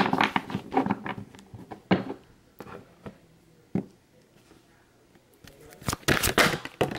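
Oracle cards being handled on a table: scattered papery rustles and flicks, a single tap just before the four-second mark, a short quiet stretch, then a denser run of card rustling near the end.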